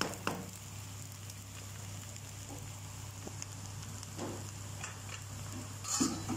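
Egg fried brown rice sizzling faintly in a pan, with a few light knocks and scrapes, the loudest about six seconds in.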